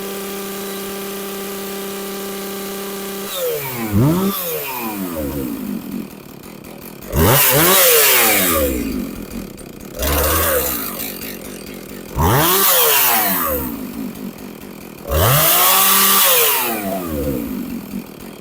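Husqvarna 450 two-stroke chainsaw idling steadily, then revved up and back down about five times, each rev rising to a loud high-pitched full-throttle scream and falling back. The saw, revived after long storage, is running smoothly and responding cleanly to the throttle.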